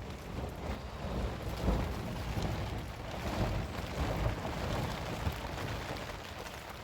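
Wind gusting over the microphone: a rough low rumble with swells that rise and fall every second or two.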